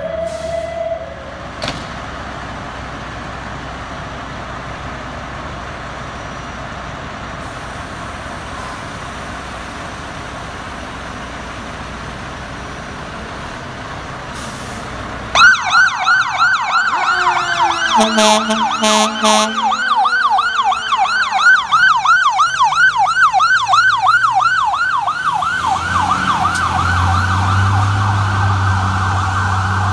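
Fire truck responding: a steady background rush of traffic noise, then about halfway through an electronic siren comes in on a fast warbling yelp, with a short air horn blast a few seconds later and a low engine hum near the end.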